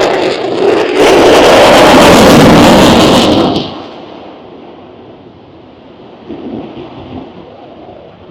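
Aircraft engine noise from an air show pass. A loud rush starts abruptly about a second in, lasts about two and a half seconds, and drops off sharply to a quieter steady rumble.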